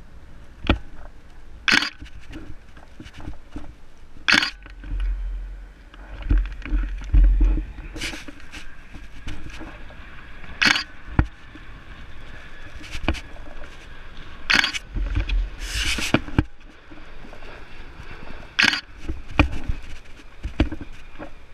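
Handling noise on a GoPro's microphone: irregular scrapes and knocks every second or few as the camera and telephoto lens shift in the hand, with gusts of wind rumbling on the mic twice.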